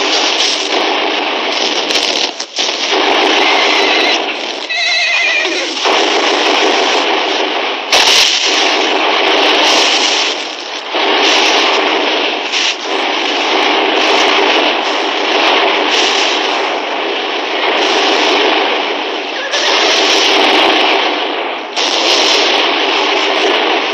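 Battle sound effects: a continuous din of rifle and machine-gun fire and explosions, with sharp blasts cutting through about eight and twelve seconds in. A horse whinnies briefly about five seconds in.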